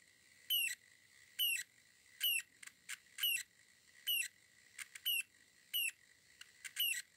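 Small DC vibration motor from a game controller running bare on a 9 V battery: a steady high whine with short squeaks repeating about once a second.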